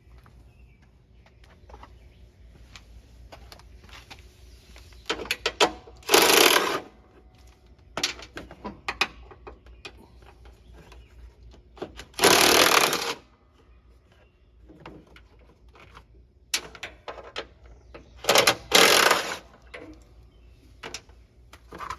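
Impact wrench with a right-angle bit and a 3/8 inch socket, run in several short rattling bursts to back out the bolts holding the mower deck's belt covers. Light clicks and knocks of the bolts and covers being handled come in between the bursts.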